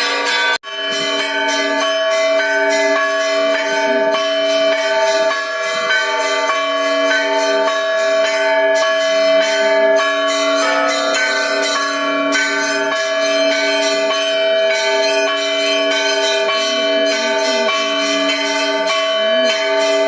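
Bells ringing in a fast, continuous peal, many strikes in quick succession with their tones ringing on over one another. The sound drops out for an instant just over half a second in.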